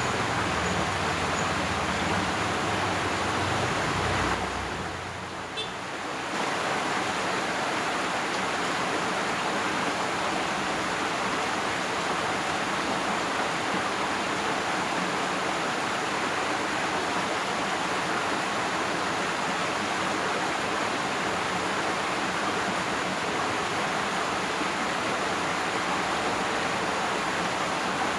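Steady rush of water flowing in a ditch, with a low hum underneath for the first few seconds.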